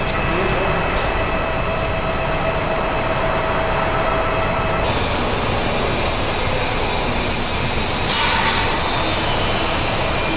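Industrial welding machinery running with a steady, loud mechanical noise and a faint whine that stops about five seconds in, and a short louder hiss near the end.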